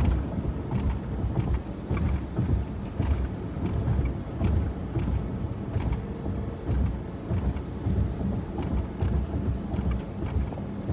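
Vehicle driving, heard from inside: a steady low road rumble with scattered light clicks and knocks.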